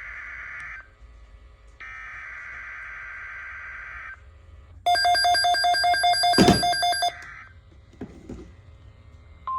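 Emergency Alert System SAME header on NOAA Weather Radio: buzzy two-tone digital data bursts, each about two seconds long with a second's gap between them, marking the start of an alert. The third burst comes about five seconds in and is much louder, with a rapid bell-like ringing over it.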